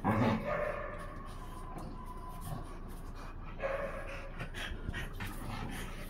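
Dogs panting during rough play, with thin whines now and then and a brief louder vocal burst right at the start.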